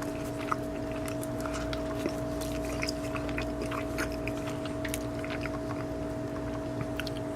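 Close-up chewing of a flaky, crunchy pastry crust: many small irregular crackles and ticks over a steady low hum.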